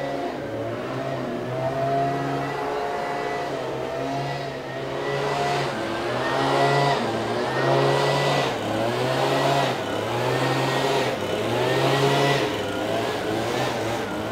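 A small two-stroke engine on a garden power tool, revved up and down over and over. Its pitch rises and drops about once a second.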